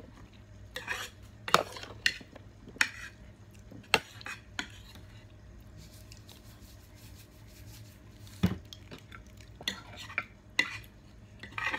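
Metal spoons clinking and scraping against plates and dishes while people eat, in short irregular clinks with a lull of a few seconds in the middle.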